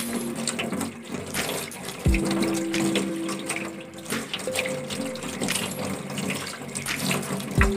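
Kitchen tap running, water splashing over a bunch of spring onions as they are rinsed by hand in a stainless-steel sink. Background music with held notes plays over it, with a low thump about two seconds in and another near the end.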